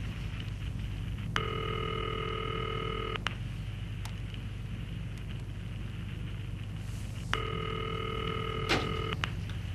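Telephone ringback tone heard through the handset while the called number rings: two steady rings of about two seconds each, some six seconds apart. A faint click comes near the end of the second ring.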